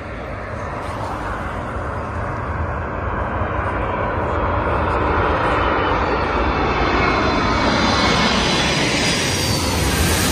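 Jet engines of a very large six-engine freighter, seen as an Antonov An-225 Mriya, passing low overhead on approach with gear down. The rumble grows steadily louder, with a whine over it, and is loudest in the last few seconds as the aircraft goes over.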